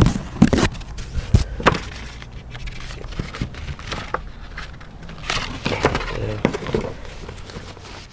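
Cardboard packaging and its contents being handled: irregular knocks, taps and rustling, a few sharper clicks among them.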